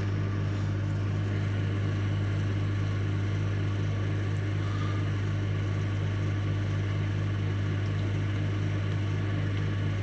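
Microwave oven running on high: a steady low electrical hum with a faint regular pulsing over it.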